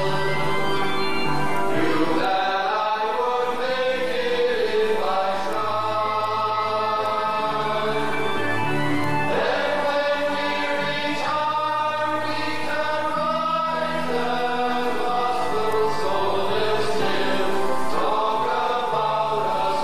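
A chorus of men's voices singing a stage-musical number together, the notes held and sustained.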